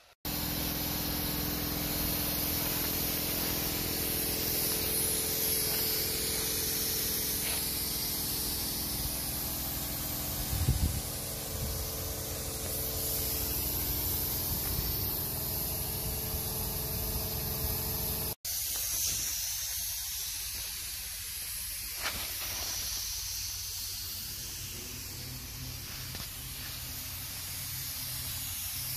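Pressure-pot sandblaster blasting abrasive in a loud, steady hiss, with a steady low drone beneath. The hiss cuts out for an instant about two-thirds of the way through and carries on.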